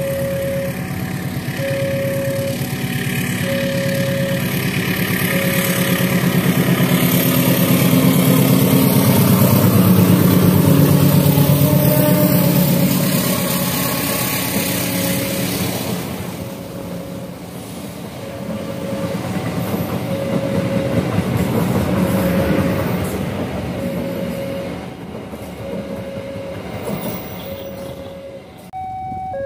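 A passenger train's coaches passing close by, a steady rumble and wheel clatter that builds to its loudest about ten seconds in, swells once more and fades near the end. Over it a level-crossing warning bell rings a short tone at an even, slow pace throughout.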